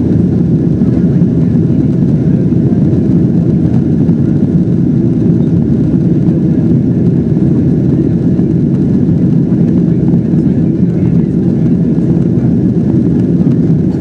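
Steady low engine and airflow noise inside the cabin of a Boeing 767-400ER during its climb.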